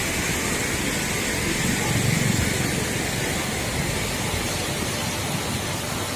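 Steady rushing noise of a waterfall, with a brief low rumble swelling about two seconds in.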